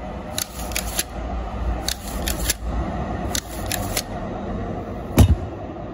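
Freshly rebuilt Honda GX120 recoil starter being worked by hand to test it: the spring-loaded rope pulley turning and rewinding, with short runs of sharp clicks about every second and a half and a single heavier knock about five seconds in.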